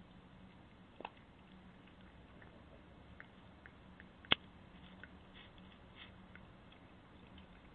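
A red fox vixen eating dog food from a bowl, picked up through a Ring doorbell's microphone: faint scattered clicks and crunches of chewing, with one sharp click about a second in and a louder one a little past four seconds.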